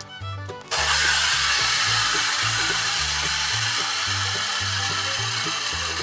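Steady hiss of water spraying from a hose nozzle to wash something off. It starts abruptly under a second in and cuts off near the end, over background music.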